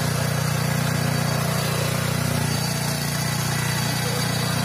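Power weeder's 9 HP single-cylinder four-stroke petrol engine running steadily while the machine works the soil.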